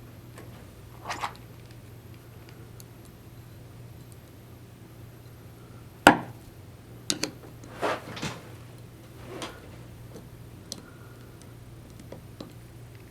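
Small metal ratchet parts being handled on a workbench: a few separate knocks and short clattering scrapes, the sharpest knock about six seconds in and a cluster soon after, over a low steady hum.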